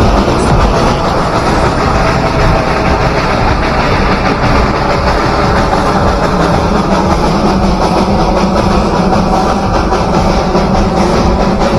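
Background music playing steadily at full volume.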